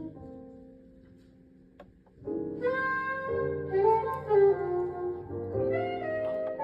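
A band plays: sound dies away to a brief lull, then about two seconds in a saxophone comes in with long held notes over bass and keyboard.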